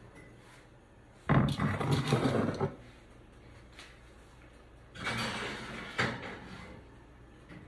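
Metal oven door and rack clattering as a foil-covered baking dish goes into a gas range's oven, in two bouts with a sharp clank in the second.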